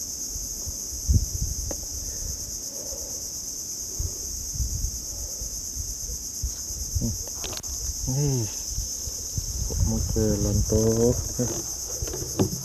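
A steady, high-pitched insect chorus with a shrill, unbroken buzz. Low knocks and rumbles sit underneath, and a voice sounds briefly about eight seconds in and again around ten seconds.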